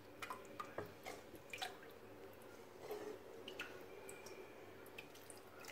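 Faint wet drips and small splashes of chicken broth, as scattered, irregular ticks and pops, over a faint steady hum.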